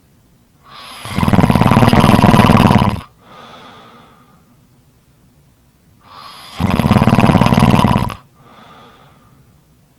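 Loud snoring: two long snores about five seconds apart, each lasting about two seconds and followed by a short, much fainter breath.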